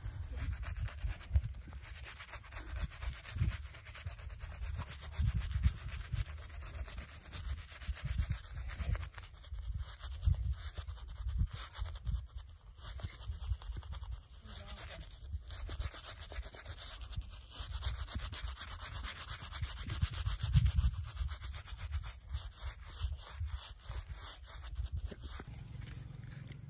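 Shaving brush scrubbing lather into a stubbly beard: a continuous scratchy brushing made of rapid strokes, with frequent dull bumps.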